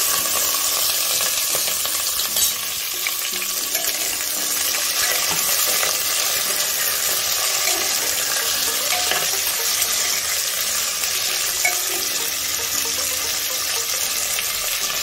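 Chopped vegetables and onion sizzling in hot oil in a pressure cooker, a steady frying hiss, with a spatula scraping lightly as they are stirred.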